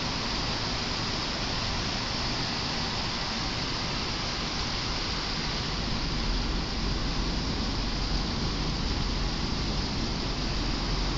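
Steady rushing noise from inside a slowly moving vehicle in the rain: engine and tyre noise mixed with rain.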